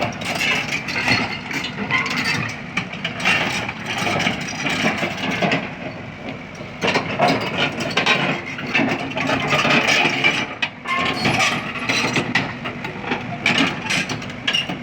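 Excavator running with loud, rapid, irregular metal clanking and rattling.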